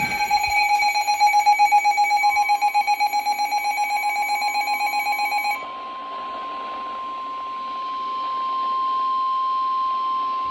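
Emergency Alert System attention signal: a fluttering two-tone alert tone that cuts off abruptly about five and a half seconds in. It is overlapped from about two seconds in by the steady single-pitch 1050 Hz NOAA Weather Radio warning alarm tone, which runs on alone after the first tone stops. Together they announce a new severe thunderstorm warning.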